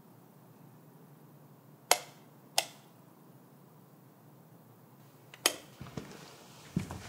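Wall light switch clicked twice in quick succession, two sharp clicks less than a second apart. A third sharp click follows a few seconds later, then a few softer knocks near the end.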